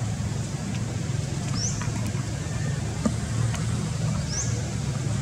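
Steady low rumble of outdoor ambience, with a short high chirp rising in pitch, heard about a second and a half in and again near the end, and a few faint clicks.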